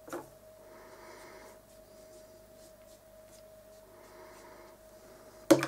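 Round watercolour brush stroking paint onto watercolour paper: soft brushing in short passes about a second long, over a faint steady hum. A sharp knock comes near the end.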